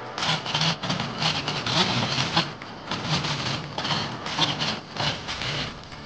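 Chainsaw cutting wood, its engine running steadily underneath while the cut rasps in uneven surges.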